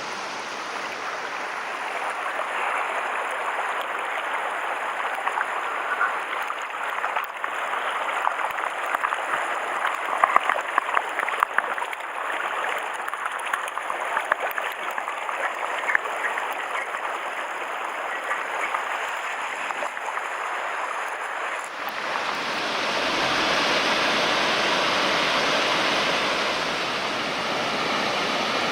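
Mountain stream rushing steadily over rocks, with a scatter of small sharp ticks and splashes in the middle. About three-quarters of the way through, the sound shifts abruptly and becomes slightly louder and fuller.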